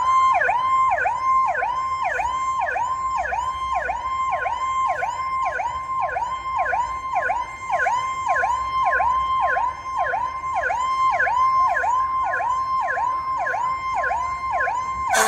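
Fire engine's electronic siren on a fast yelp, sweeping down and back up about twice a second without a break; it cuts off abruptly at the very end.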